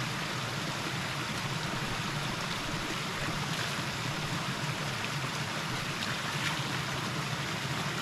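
Steady rushing of a mountain stream, an even wash of flowing water with no change in strength.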